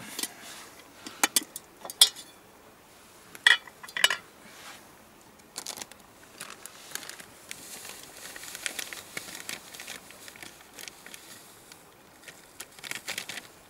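Metal camp cookware clinking and knocking several times in the first few seconds as the pot lid is taken off. Then a plastic food packet rustles and crinkles while instant mashed potato is poured into the pot and stirred.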